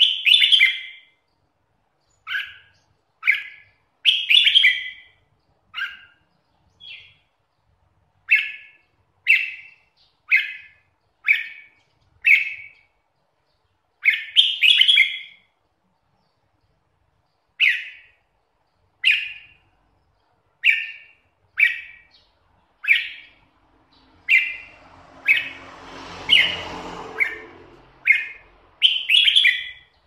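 Red-whiskered bulbul singing short, loud, clear phrases, roughly one a second with brief pauses between them. Near the end, a low rumbling noise rises for a few seconds beneath the song.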